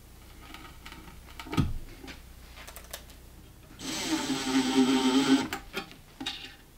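Makita 18V cordless drill-driver running for about a second and a half, driving a screw through a steel drawer runner into a cabinet side, getting louder as the screw tightens, with a short second burst near the end. Before it come a few light clicks and a knock as the runner and screw are set in place.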